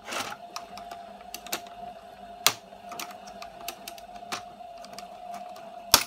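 Small screwdriver prying and picking at the plastic clips of an electric shower's pressure switch: a string of irregular sharp plastic clicks and scrapes. The loudest snaps come about two and a half seconds in and just before the end.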